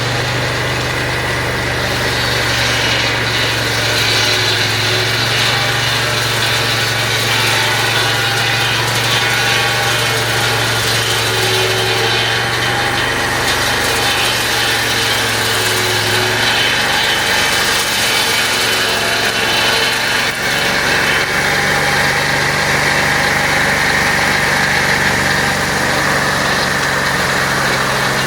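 Band sawmill's engine running steadily, with a constant hiss over it. The low hum fades about sixteen seconds in, and a higher-pitched hum takes over about five seconds later.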